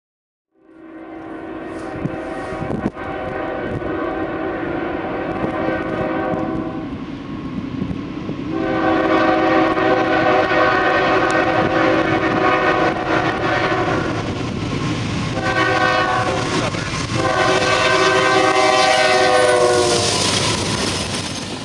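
Air horn of a Norfolk Southern GE C40-9 freight locomotive blowing the grade-crossing signal: long, long, short, long. The blasts get louder as the train nears. Near the end the locomotives and the stack cars rumble and clatter past.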